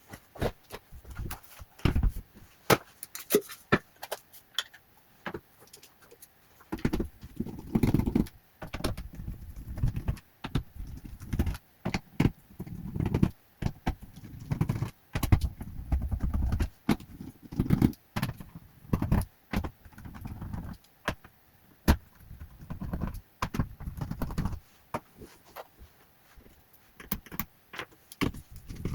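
Repeated sharp clicks, taps and small metallic clinks of tools and parts being handled on a laptop, with stretches of low rubbing and handling noise in the middle.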